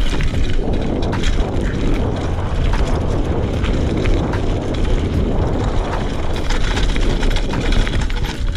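Fuji Addy 1.5 mountain bike descending a dirt forest trail at speed: tyres rolling over dirt and leaf litter, the chain and frame rattling and clicking over bumps, under a heavy rumble of wind on the camera's microphone.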